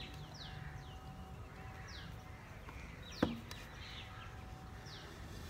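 Birds calling with short, high, falling chirps every second or so. About three seconds in comes a single sharp knock as the terracotta pot is turned over and knocked to loosen the seedlings.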